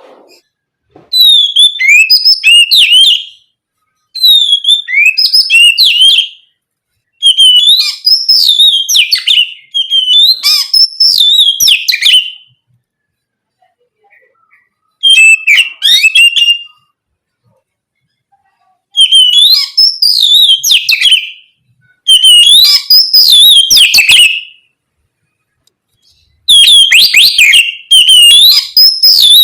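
Oriental magpie-robin (kacer) singing loud, high, whistled and warbled phrases, each two to three seconds long, about eight in all, with short silent pauses between them.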